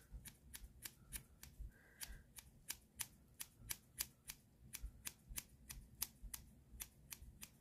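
Scissors snipping the bangs of a synthetic wig, the blades held upright in the fringe: a steady run of short, faint snips, about four a second.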